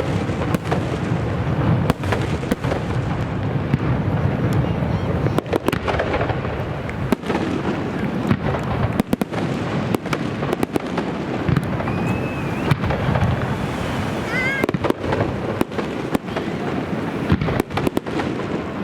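Fireworks display: a dense, unbroken run of bangs and crackles from bursting shells, with a couple of brief whistles past the middle.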